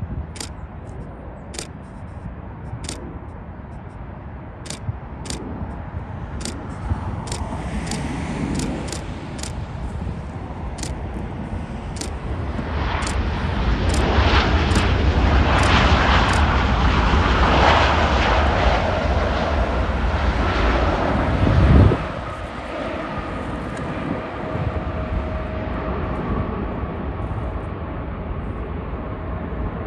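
Jet engine noise of a landing Airbus A350-900 (Rolls-Royce Trent XWB engines). It builds as the airliner comes in and is loudest through the touchdown and rollout. About 22 seconds in it drops suddenly after a low thump, leaving a fainter engine whine. Sharp high clicks repeat through the first dozen seconds.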